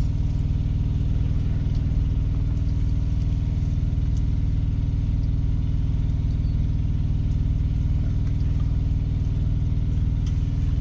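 Peterbilt 389 semi truck's diesel engine idling steadily, heard from inside the cab as a constant low drone.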